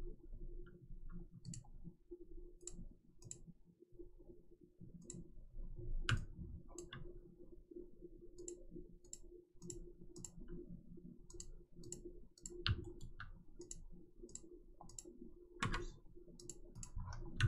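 Irregular, quiet clicking of a computer mouse, single clicks and quick runs of several, over a faint steady hum.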